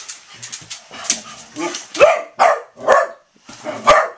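A pit bull and a foster puppy play-fighting over a slipper: scuffling and clicking at first, then four short, loud barks from about two seconds in.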